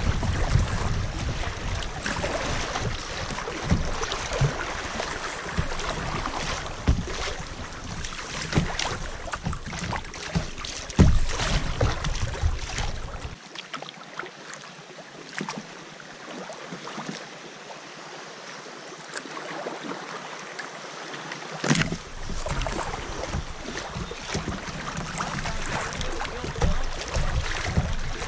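Creek water rushing and splashing around a kayak hull running through riffles, with wind rumbling on the bow-mounted microphone. Partway through it drops to softer lapping for several seconds on a calm stretch. After a sharp splash the rushing and splashing pick up again.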